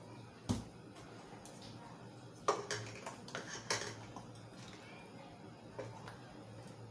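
Small aluminium cups and a metal measuring cup clinking and knocking against a metal mixing pan as bean batter is scooped and poured into the cups. There is one sharp clink about half a second in, a cluster of knocks around the middle, and a lighter tap near the end.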